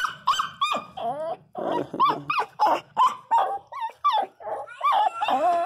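Pinscher dogs whining and yelping in a quick string of short rising-and-falling cries, about two a second, mixed with some growling as one dog bares its teeth at the other.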